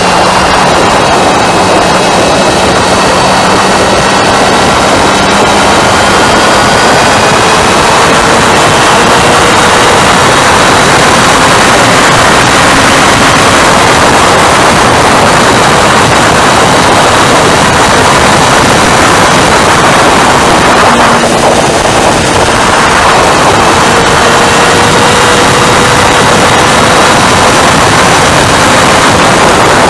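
Wind rushing over the microphone of a camera on a moving motorcycle, loud and steady, with the motorcycle's engine faintly under it, its pitch rising slowly.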